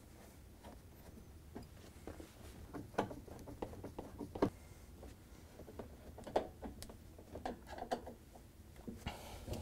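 Phillips screwdriver backing screws out of the metal edge of a dishwasher door: faint, irregular small clicks and scrapes, a few sharper ticks among them.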